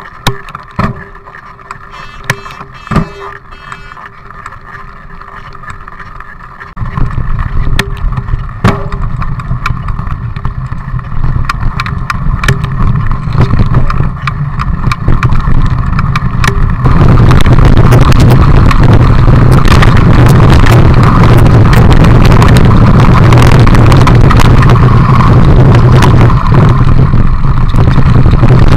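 Mountain bike ridden over gravel, heard through a camera mounted on the bike: wind rushing over the microphone, with tyre and frame rattle. The first seconds are quieter, with scattered sharp clicks. The noise turns loud about a quarter of the way in and louder still, and steady, from just past halfway.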